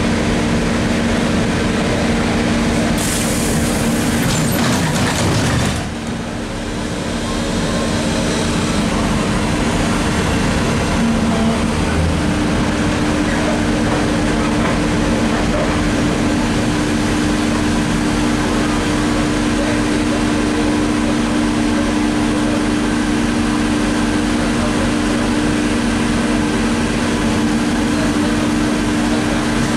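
ZiU-683B articulated trolleybus running, with a steady electrical hum of two low tones over the rolling noise. About three seconds in comes a burst of hissing lasting nearly three seconds, after which the noise briefly drops.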